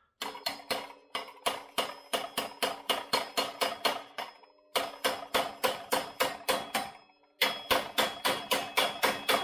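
Claw hammer tapping a socket held on the outer race of a new front wheel bearing, driving the bearing into the hub of a 2000 Honda CR125R front wheel. Quick metallic strikes, about four a second, each with a ringing tone, in three runs broken by two short pauses, one near the middle and one about three-quarters through.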